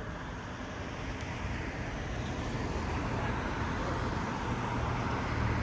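Steady rumble of passing vehicles, growing gradually louder, with the low rumble strengthening near the end.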